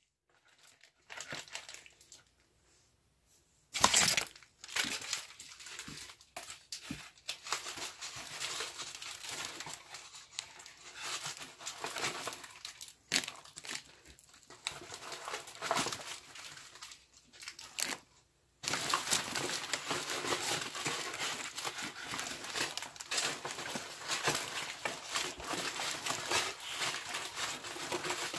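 Rustling and crinkling handling noise, covering most pitches. It comes in irregular bursts after a few near-silent seconds, stops briefly about two-thirds through, then turns continuous.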